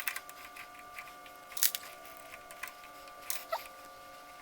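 Metal hand tools being handled at the lathe, as a tap handle is fetched and fitted to a 10-32 tap: a few sharp clicks and clinks, loudest about a second and a half in and again a little past three seconds, over a steady faint hum.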